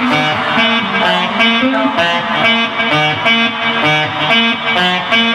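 Runway music with a steady beat and a repeating bass figure.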